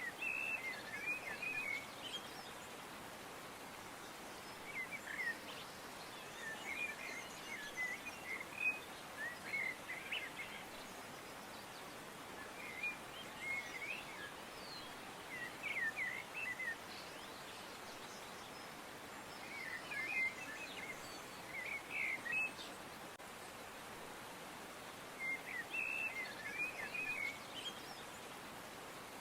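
Songbirds chirping in short bursts of quick notes every few seconds, over a steady outdoor background hiss.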